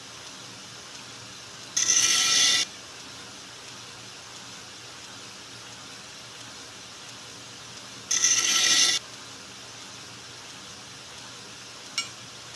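2x72 belt grinder running, with two short grinding passes about six seconds apart, each under a second long, as a G10 knife handle scale is pressed against the belt on a 12-inch contact wheel to hollow-grind a chamfer. A single sharp click comes near the end.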